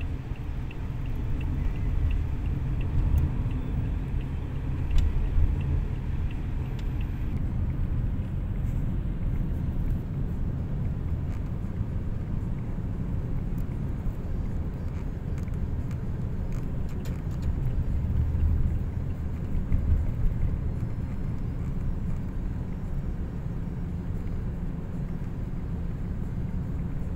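Low, steady rumble of a car driving, heard from inside the cabin: engine and tyre noise on the road.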